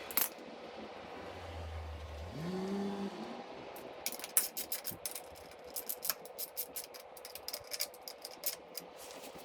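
Metal parts and tools clicking and clattering in quick, irregular bursts from about four seconds in, as a motorcycle brake caliper is fitted back over the disc. Before that, a short low hum that rises in pitch near the three-second mark.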